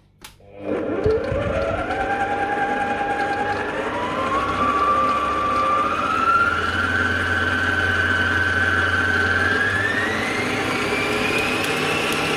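Electric stand mixer switched on, its wire balloon whisk whipping egg whites to stiff peaks in a stainless steel bowl. The motor whine climbs in several steps as it speeds up.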